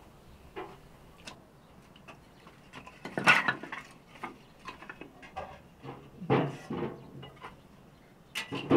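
Split firewood sticks clattering as an armload is dropped onto the floor about three seconds in, then scattered knocks of wood on wood as the sticks are sorted. Near the end there is a sharper clunk as a stick goes into a small sheet-metal stove.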